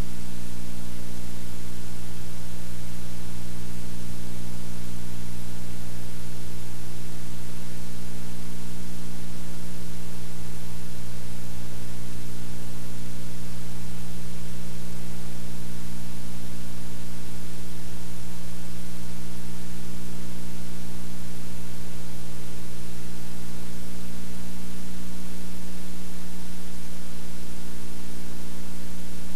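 Loud, steady electrical mains hum, a low buzz with a stack of overtones, under constant hiss and with no other sound: line noise on a blank, black stretch of the tape's playback.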